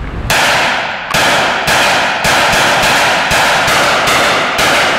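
A carbine fired in quick succession at an indoor range: about nine gunshots, roughly two a second, each ringing on into the next off the concrete walls.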